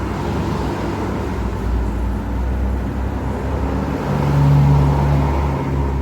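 Steady low roar of a gas cooking burner under the wok while sauces are added to the chopsey. It grows louder for about a second, about four seconds in.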